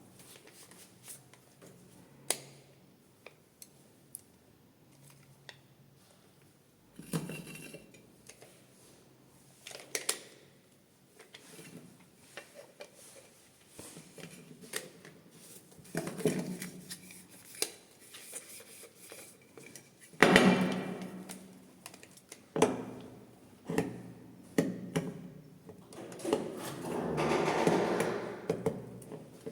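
Hands handling a boxed toy and its packaging: irregular clicks, knocks, scrapes and rustles of hard plastic and cardboard.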